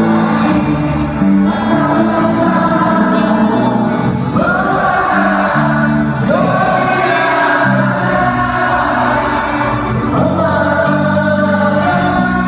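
Live rock band playing with a large crowd singing along, many voices together over the music.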